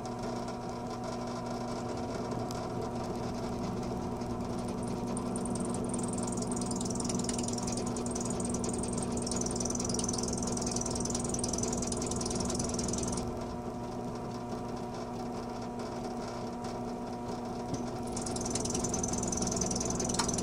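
An electric drill running steadily as its bit works into the vise screw's broken pin, with a high-pitched squeal from about six to thirteen seconds in and again near the end. The bit is making little headway against something very hard inside.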